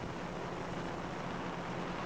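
DJI Phantom 2 quadcopter's motors and propellers running steadily in flight, heard through the GoPro camera mounted on the drone: a low hum under a constant rush of wind and prop wash.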